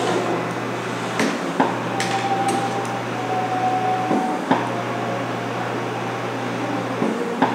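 Electric massage chair running: a steady motor hum with a whining tone at times, broken a few times by short knocks from the mechanism, the hum cutting out briefly just before some of them.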